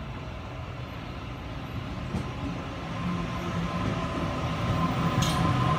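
Sydney Trains Waratah double-deck electric train pulling into the platform, growing steadily louder as it draws close. A low hum and a higher steady whine build through the second half, with a couple of faint clicks.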